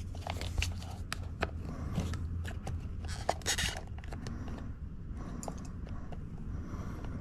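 Irregular small clicks, taps and scrapes of steering-wheel trim pieces being pried and worked apart by hand, with a short denser scraping stretch about three and a half seconds in, over a low steady hum.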